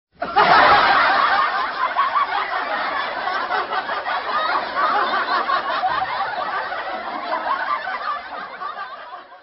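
Many people laughing and snickering at once, like a laugh-track sound effect. It starts suddenly at full loudness and slowly fades away toward the end.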